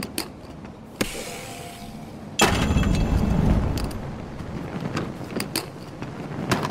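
Sound effect for a glowing heart broken in two and set into two chests. A soft rush comes about a second in, then a sudden loud rush with a deep rumble and bright ringing tones about two and a half seconds in. It fades over the next few seconds, with a few scattered clicks.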